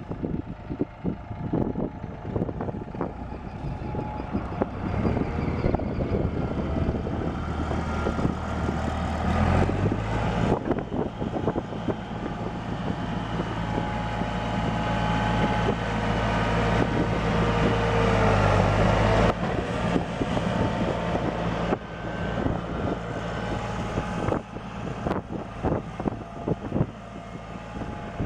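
New Holland LS180 skid steer's diesel engine running, revving up about ten seconds in, held at higher speed, then dropping back a little before twenty seconds. Repeated short knocks are heard throughout.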